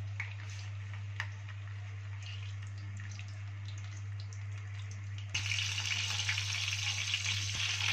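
Boiled duck frying in a pan of ghee and oil: light crackling and spitting at first, then, about five seconds in, a sudden, much louder dense sizzle of the fat.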